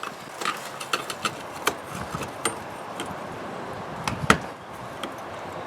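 Scattered clicks and knocks of a dishwasher's motor and pump parts being handled and fitted back together, with one louder knock a little past four seconds in.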